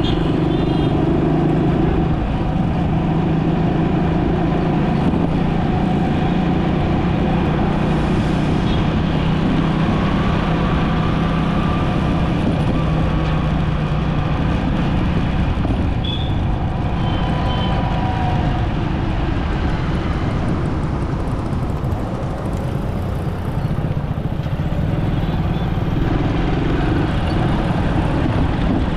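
City road traffic heard from a moving vehicle: a steady rumble of engines and tyres, with a low steady drone through roughly the first half.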